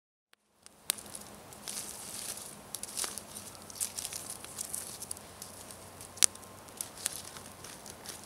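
Small wood campfire burning down to ash and embers: scattered sharp crackles and pops over a steady high hiss, fading in just under a second in. A stick is stirring the coals.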